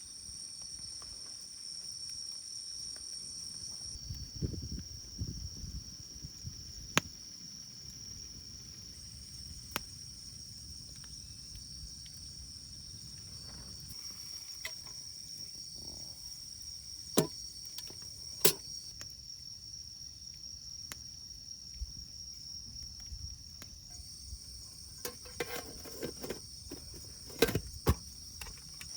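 Insects singing steadily in a high, unbroken drone, over which a wood fire in a small campfire grill gives off occasional sharp pops and crackles, with a few duller knocks.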